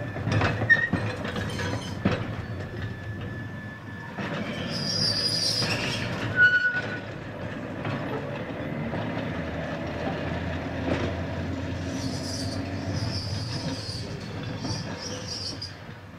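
A single-truck electric tram rolling along the track, its wheels clicking over rail joints. The wheel flanges squeal in high tones on the curve, briefly about five seconds in and again for a few seconds near the end.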